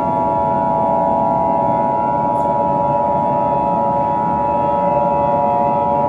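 Emergency Alert System attention signal: the steady, harsh two-tone alert held without a break, over a steady lower background drone.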